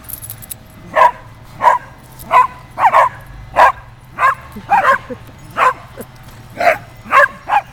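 A small dog barking repeatedly in play: about ten short, high barks, a little more than one a second.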